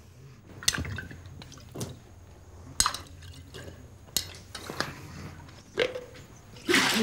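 Liquid poured from a plastic bottle onto a person lying on a bed: scattered drips and small splashes with a few light knocks, over a faint low hum.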